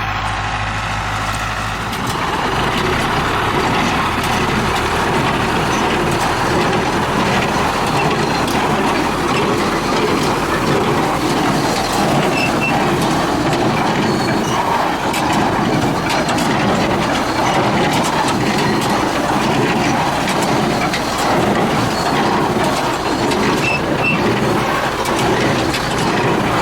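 International 784 tractor running with hay machinery in work behind it: the engine drone is joined about two seconds in by a steady, busy mechanical clatter that carries on throughout.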